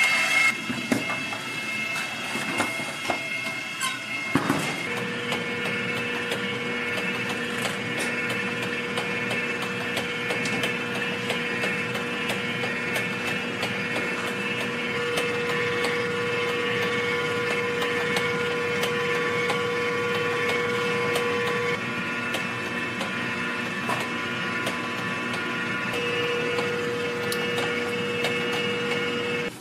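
A stand mixer's wire whisk running in a steel bowl, then, from about four seconds in, a steady machine hum with many scattered clicks and scrapes as a long knife cuts through a slab of sponge cake on parchment paper.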